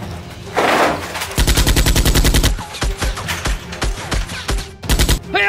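Automatic gunfire sound effects over background music: a whoosh about half a second in, then a one-second burst of rapid fire at about ten shots a second, scattered single shots, and another short burst near the end.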